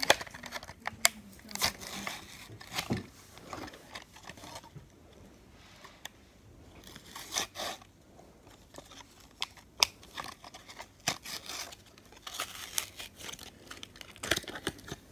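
Hot Wheels cardboard-and-plastic blister pack being torn open by hand: scattered rips, crackles and crinkles, with a quieter pause about five seconds in.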